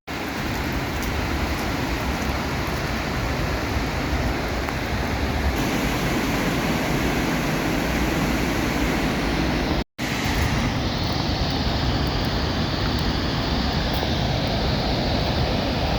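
Steady rushing of a large waterfall running high with floodwater, a dense, even noise with no distinct events. It cuts off abruptly about ten seconds in and resumes with a slightly different balance.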